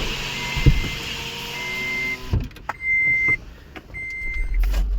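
Short electronic beeps, each about half a second long, repeating about once a second over the car's running noise. That noise drops away suddenly a little over two seconds in, with a couple of knocks.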